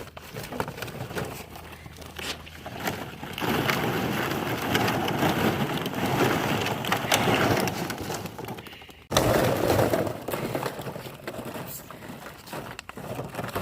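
Hollow plastic ball-pit balls crackling and clattering as puppies scramble and chew in them. A dense crackle starts about three seconds in, cuts off suddenly about nine seconds in, and briefly starts again.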